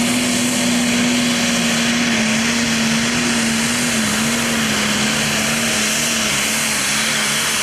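Heavy super stock pulling tractor's diesel engine at full throttle under load, dragging a weight-transfer sled and blowing black smoke from its twin stacks. The engine note holds steady, wavering only slightly in pitch.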